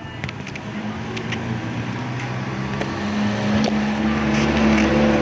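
Washing machine's motor running with a steady hum and a few light clicks, growing louder about three seconds in.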